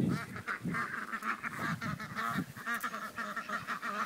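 A few white domestic ducks quacking, many short calls in quick succession. A bump of handling noise comes at the very start.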